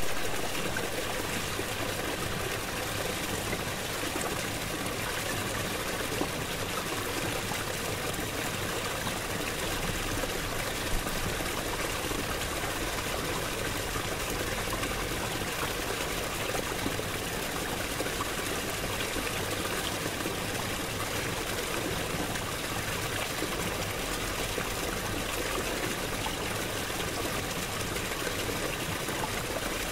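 Shallow stream running over stones between shelves of ice, a steady trickling flow of water.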